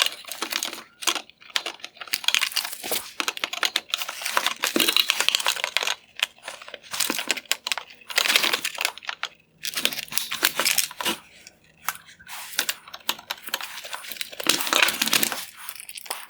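Plastic parts of a Porsche Panamera LED headlight being worked by hand: irregular clicks, creaks and scraping in bursts as the tabs on the upper projector's plastic mounts are squeezed and released.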